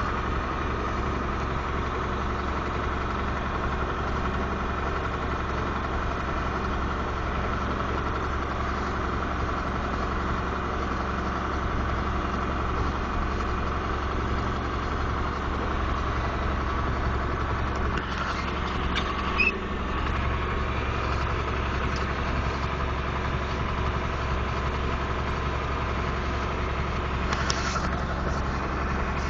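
A vehicle engine running steadily at an even speed while hauling a heavy potato harvester, with a brief rattle and knock about two-thirds of the way through and a short burst of noise near the end.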